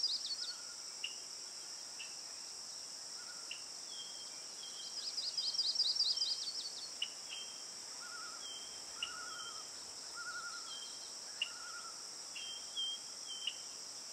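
Nature-sounds soundtrack: birds chirping and trilling over a steady high insect drone. Two runs of quick high trilled notes, near the start and about five seconds in, stand out, with short scattered chirps in between.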